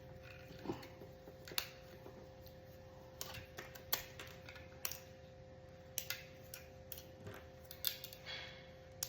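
Faint, irregular clicks and taps of small hard plastic 3D-printed pieces being handled, a dozen or so scattered through, over a faint steady hum.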